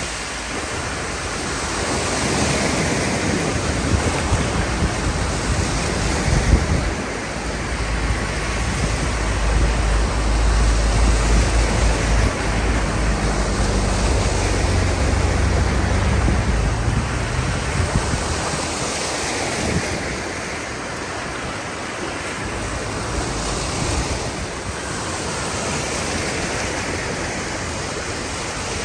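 Cars driving one after another through deep floodwater on a road, their tyres throwing up rushing, splashing spray that swells and fades as each car passes. A deeper vehicle rumble is strongest through the middle.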